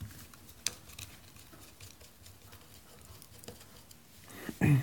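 A few sparse, sharp clicks and taps of small steel parts and a screwdriver being handled on a workbench during revolver disassembly, the loudest about two-thirds of a second in. A short, louder bit of voice comes just before the end.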